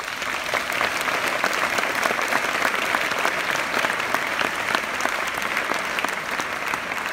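Audience applauding: many hands clapping, a dense, steady patter of claps that swells just after the start and eases slightly near the end.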